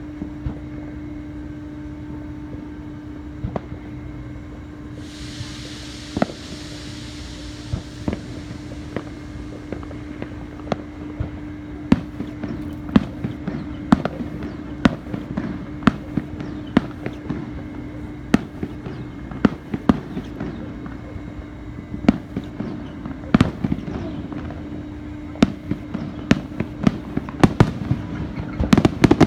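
Fireworks going off: sharp bangs and cracks, sparse at first, then coming faster and thicker, with a rapid burst of them at the very end. About five seconds in a hiss starts suddenly and fades over several seconds. A steady low hum lies underneath.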